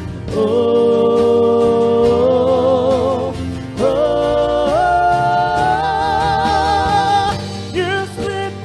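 Live worship band playing a slow song: a singer holds two long "oh" notes with vibrato over acoustic guitar, bass, keyboard and drums. The second note steps higher, and shorter sung notes follow near the end.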